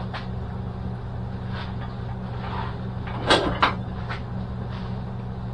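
A few knocks of the steel door shell being shifted on the workbench: two sharp ones about three seconds in and a lighter one about a second later, over a steady low hum.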